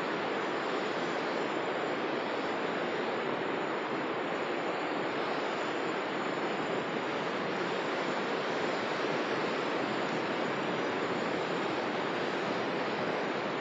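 Sea surf breaking on the shore: a steady, continuous rush of waves.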